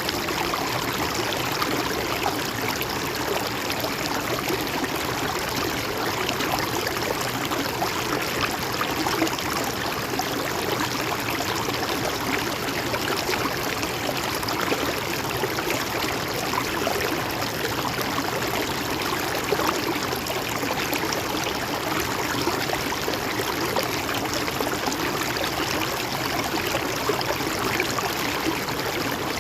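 River water flowing, a steady, even rush with no change in level.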